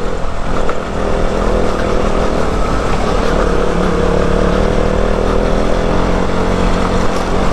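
Off-road motorcycle engine running steadily while riding along a dirt road, its pitch holding fairly even.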